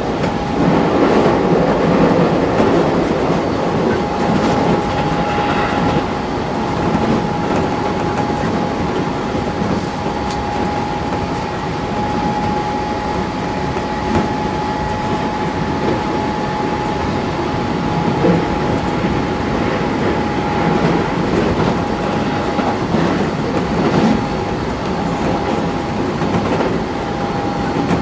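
Cabin running noise of a Keisei 3400 series chopper-controlled electric train at speed: a steady rumble of wheels on track with a high steady whine and occasional clicks over rail joints.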